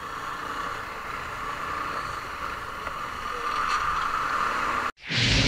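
CFMoto NK150 motorcycle riding slowly in traffic, a steady mix of engine and wind noise on the microphone. About five seconds in it cuts off suddenly and a louder low rumble with a steady hum begins.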